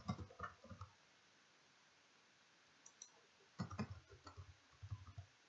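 Faint computer keyboard keystrokes. There is a quick run of typing at the start, a couple of taps about three seconds in, then another run of typing.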